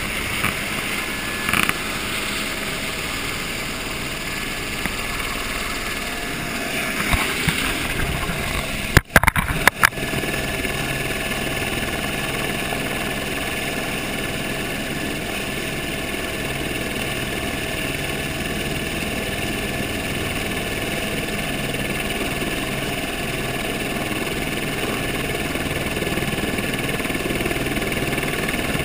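AS350 B2 A-Star helicopter's turboshaft engine and rotor running steadily under power, holding a toe-in landing on a ridge. A few loud knocks come about nine seconds in.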